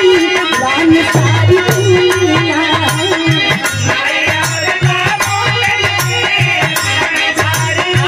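Live folk music: a wavering melody line over a hand-drum beat that starts about a second in, with a steady jingling rattle keeping time.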